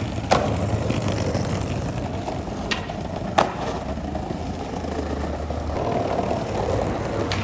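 Skateboard wheels rolling over pavement, with a few sharp clacks of the board. The loudest clack comes about three and a half seconds in, and a smaller one comes just after the start.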